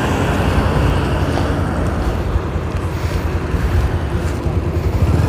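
Motorcycle engine idling at the roadside, a steady low rumble, with wind on the helmet-mounted microphone.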